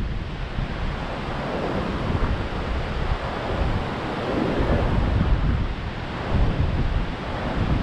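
Storm-driven surf breaking continuously on a beach, with strong wind rumbling on the microphone in gusts that swell and ease every second or two.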